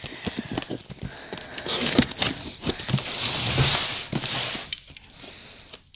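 Utility knife slitting packing tape and cardboard on a shipping box: a run of small clicks and crackles from the tape and box, then a longer scraping cut from about two seconds in, dying down near the end.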